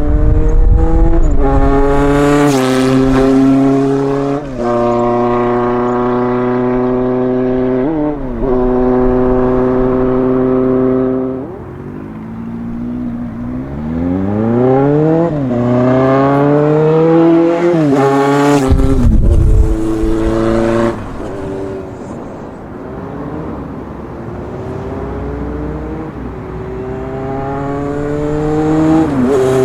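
Honda CB750 Four's inline-four engine with a four-into-one exhaust, accelerating through the gears. The pitch climbs and drops back at each shift, and the engine eases off and pulls again a couple of times.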